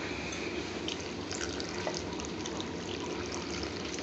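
Water poured from a stainless steel jug onto chopped vegetables in a steel pan, trickling and splashing steadily.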